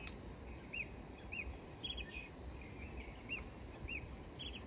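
Outdoor dusk ambience: a bird repeating short chirps that rise and fall, about one a second, some in quick pairs, over a steady high insect drone and a low rumble.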